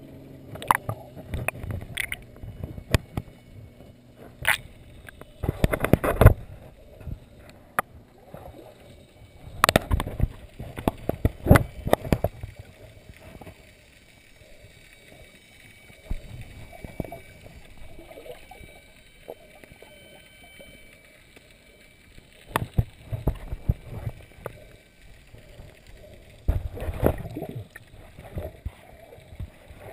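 Swimming splashes and gurgling water heard through an underwater camera, muffled, with irregular knocks of water against the housing and several louder bursts of splashing.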